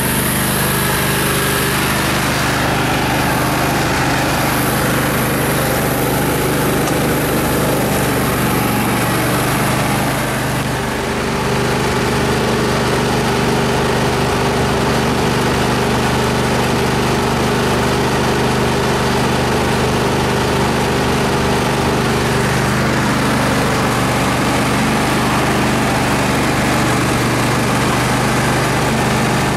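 Riding lawn mower's small engine running steadily as the mower is driven along. Its note shifts slightly about a third of the way through.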